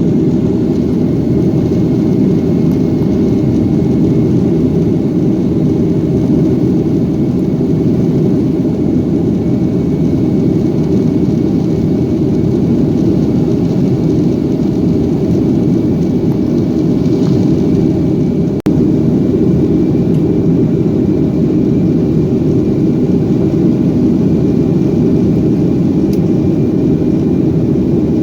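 Jet airliner cabin noise heard from inside the cabin: a steady low rumble of the jet engines and airflow, with a faint high whine above it. The sound cuts out for a split second about two-thirds of the way through.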